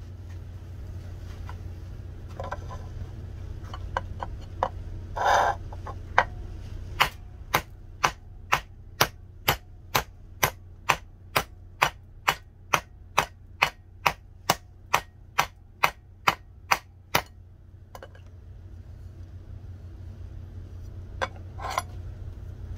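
A hammer striking a leaf-spring steel cleaver blade held in a bench vise: a steady run of about two dozen sharp strikes, a little over two a second, starting about a third of the way in and stopping about three-quarters through, over a steady low hum.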